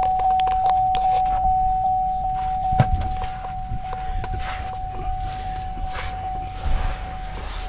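A vehicle's warning chime dinging steadily, about three times a second. A single thump comes about three seconds in, followed by some rustling.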